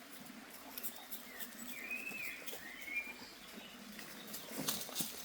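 A bird calling: a short phrase of whistled notes that rise and fall, starting about a second and a half in, over scattered light ticks and crackles.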